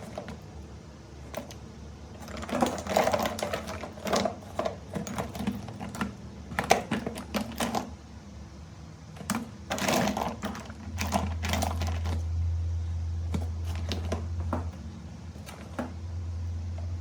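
Irregular sharp clicks and clatters of hard parts being handled, coming in clusters. A steady low electrical hum comes in about eleven seconds in.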